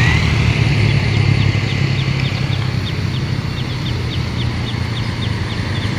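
A large road vehicle's engine running steadily as traffic goes by. Over it a short, high chirp repeats evenly, about two or three times a second.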